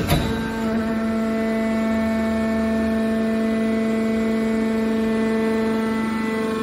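Hydraulic power unit of a scrap-metal car baler running: its motor and hydraulic pump hum steadily at one pitch. A short knock sounds at the very start.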